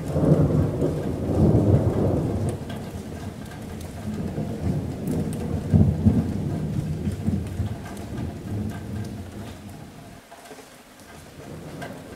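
Thunder rumbling over steady rain on a metal roof. The rumble starts suddenly, swells again about six seconds in, then rolls away near the end, leaving the patter of rain.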